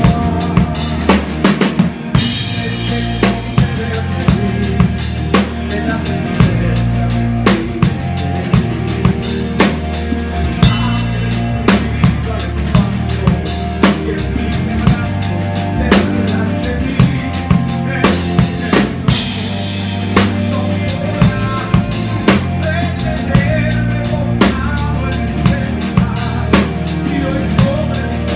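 Live band playing a song: an acoustic drum kit is loudest, kick and snare keeping a steady beat of about two hits a second, over electric bass and keyboard, with a singer's voice through the PA.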